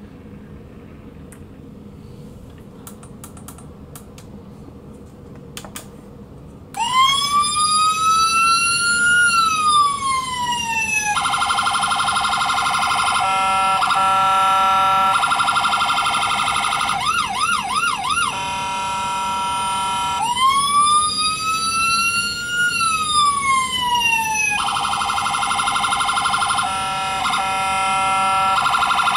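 Electronic police siren from a diecast Ford Crown Victoria police-car model's sound unit. A few faint clicks come first, then the siren starts suddenly about seven seconds in. It cycles through a rising and falling wail, fast pulsing and alternating two-tone patterns with a quick warble, then the wail again.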